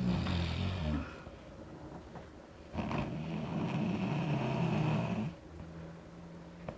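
An ox snoring: low, rasping, buzzing snores. A short one comes at the start, and a longer one of about two and a half seconds begins about three seconds in.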